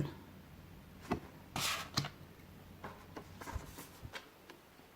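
Game cards being handled on a table: a few light clicks and taps, with a brief sliding rustle about one and a half seconds in as a card is moved.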